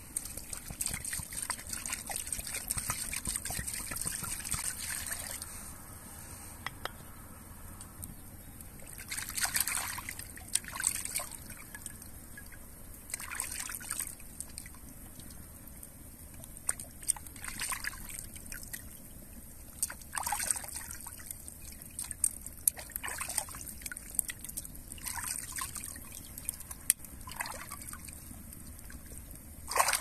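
Water poured in a steady trickle from a burlap-wrapped clay jug into a wooden bowl for about five seconds, then irregular sloshing and splashing as hands wash raw chicken breasts in the water.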